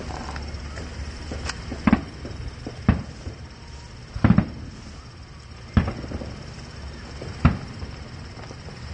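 Aerial fireworks shells bursting: a series of about six booms at irregular intervals, with a quick double bang near the middle.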